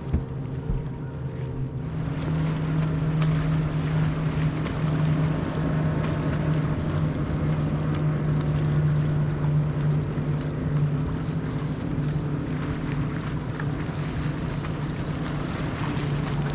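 Boat outboard motor running steadily under way, with wind buffeting the microphone and water rushing past the hull. The motor grows louder and fuller about two seconds in.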